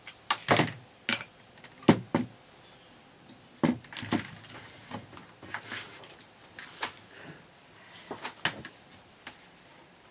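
Irregular clicks and knocks of the drill's gearbox parts being handled during disassembly, a gear lifted out and set down, with a few sharper knocks in the first couple of seconds.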